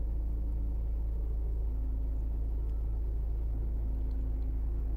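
A steady low hum that does not change, with a few faint held tones above it.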